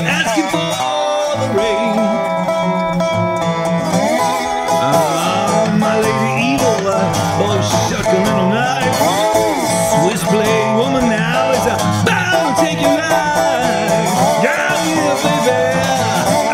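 An old-fashioned acoustic blues tune played on guitar, its notes bending and sliding in pitch.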